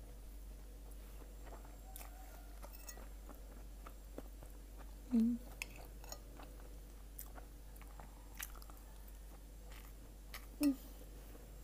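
Close-up mouth sounds of someone chewing a mouthful of rice and fried egg, with faint clicks. The loudest moments are two short hums of the voice, about five seconds apart.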